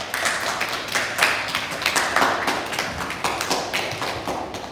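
Applause: many hands clapping in a dense, quick patter.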